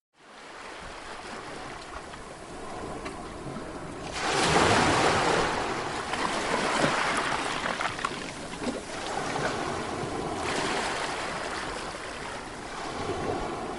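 Sea waves breaking on a shore: a steady wash of surf, with a louder wave surging in about four seconds in and another near the end. The sound fades in from a brief near-silent gap at the very start.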